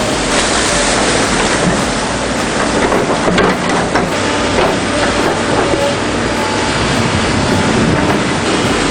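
Tracked heavy machine running, its steel tracks clanking and squealing over a loud, steady engine noise, with a few sharper metallic clicks about three to four seconds in.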